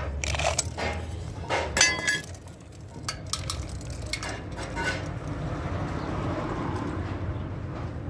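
Metal clinks and knocks, several in the first five seconds. The loudest comes about two seconds in and rings briefly. A steady low hum runs underneath.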